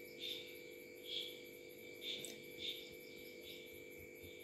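Faint cricket chirps, short and high, about once a second, over a steady background hum.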